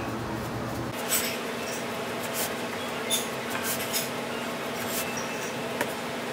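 Long wooden rolling pin rolling udon dough against a floured wooden board, with soft, irregular knocks and rubs as the palms press and roll it. A steady background hum runs underneath.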